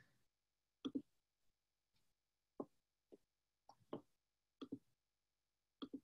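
Faint, irregular clicks at a computer, about ten in all, some in quick pairs.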